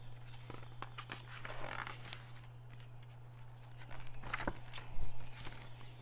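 Paper rustling and soft handling clicks as the page of a large picture book is turned, over a steady low hum.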